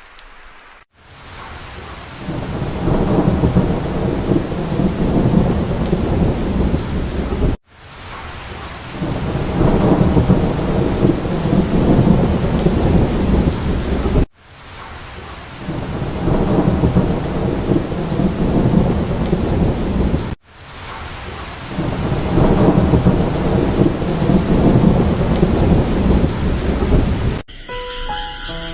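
Heavy rain with deep rolling thunder, in four stretches of about six or seven seconds, each cut off abruptly and swelling back up over a second or two. Music starts near the end.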